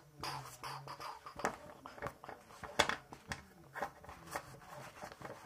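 Handling noise: scattered light clicks, taps and rustles as hands move a paper towel roll and small toy figures close to the microphone.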